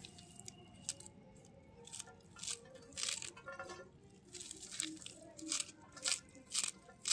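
Small kitchen knife chopping a handful of fresh saag leaves and tender stems, a series of short crisp cuts that settle into about two a second in the second half.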